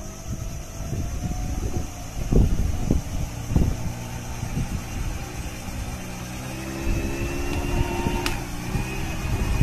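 Pontoon boat's outboard motor running steadily, with a few low thumps about two to three and a half seconds in.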